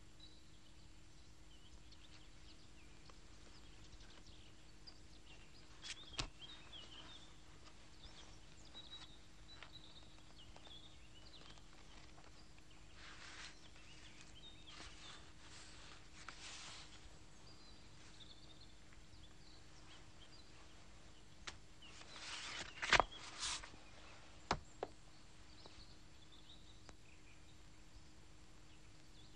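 Faint outdoor ambience with scattered bird chirps, broken by a few sharp knocks and brief rustling noises, loudest a little past the middle.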